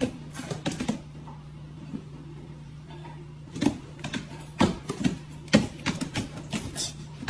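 A dog's claws and paws clicking and tapping on a hardwood floor in irregular knocks, over a steady low hum.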